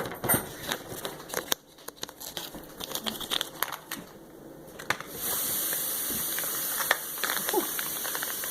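A bag crinkling as it is handled, with light clicks of small parts. About five seconds in a steady hiss starts and runs on.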